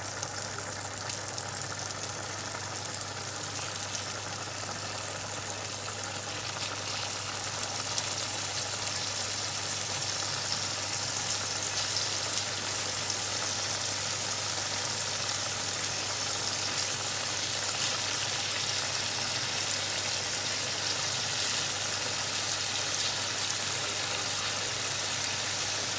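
Chicken pieces sizzling in melted butter in a nonstick frying pan, getting louder after the first several seconds as more pieces are laid in. A steady low hum runs underneath.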